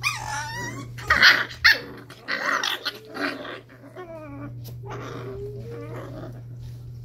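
Five-week-old Cardigan Welsh Corgi puppies play-fighting, giving high squeaky yips, small growls and barks, and whines. The loudest cries come about one to two seconds in, over a steady low hum.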